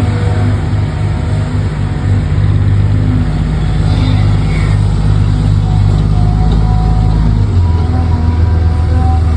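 Diesel truck engine sound running steadily, as from an RC truck's engine sound unit. Its note drops lower about seven and a half seconds in.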